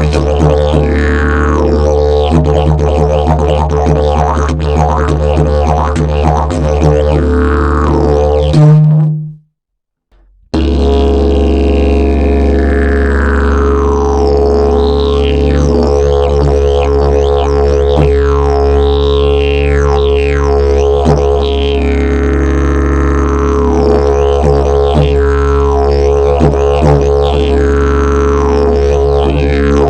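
Fiberglass and prickly-pear-fiber slide didgeridoo playing a steady low drone, its overtones sweeping up and down. About nine seconds in it gives a brief louder blast and breaks off, falls silent for about a second, then the drone starts again.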